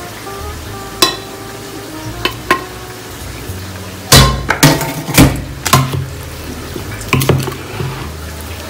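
A metal spoon clinking and knocking against a plate and a plastic bowl as spices are scraped onto raw chicken pieces. A few separate clinks with short metallic ringing come first, then a busier run of knocks between about four and six seconds in as the chicken starts to be stirred.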